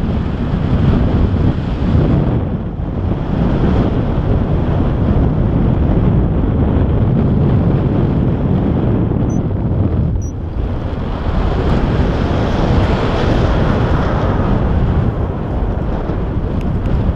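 Airflow buffeting the microphone of a camera on a paraglider in flight: a loud, steady wind rush that eases briefly twice, about two and a half seconds in and again about ten seconds in.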